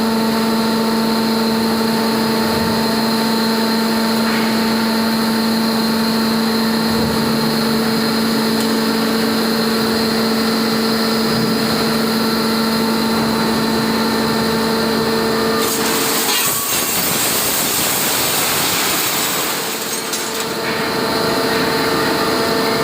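Y81QF-800 hydraulic metal baler running with a steady mechanical hum and whine. About sixteen seconds in the hum gives way to a loud hiss for about four seconds, then the steady hum returns.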